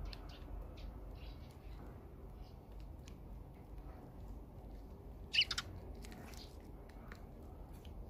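Small birds at a seed feeder, Eurasian tree sparrows, giving scattered short chirps, with one louder chirp about five and a half seconds in, over a faint low background rumble.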